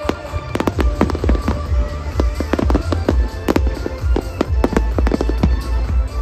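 Aerial fireworks shells bursting in quick succession, many sharp bangs over a continuous low rumble, with music playing underneath.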